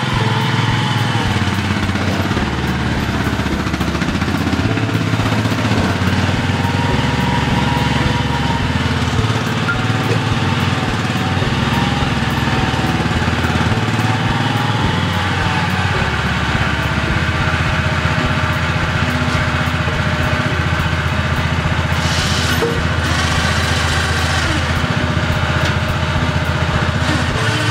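Small loader tractor's engine running steadily while its bucket holds the outboard on a chain, with a higher whine that rises and falls in pitch. A brief hiss comes about 22 seconds in.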